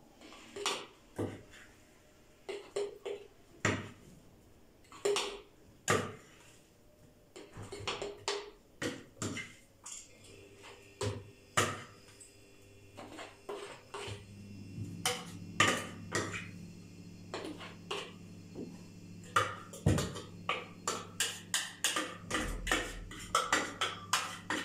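A spoon clinking and scraping against small glass jars as chopped green garlic is packed in: irregular clicks and knocks, denser towards the end. About halfway through, a low steady hum starts and continues underneath.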